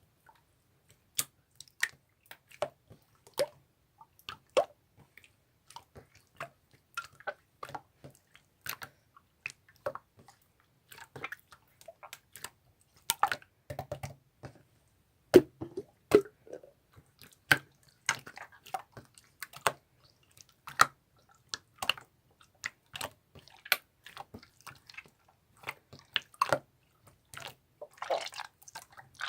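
Purple mixed slime being pressed and kneaded by hand, making irregular sharp wet clicks and pops, about one or two a second. The sounds come closer together, in a run of squishing, near the end.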